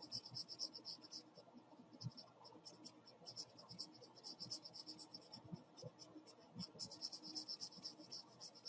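Faint scratching of a felt-tip marker on sketchpad paper: quick back-and-forth strokes in several short runs, each about a second long, with pauses between them.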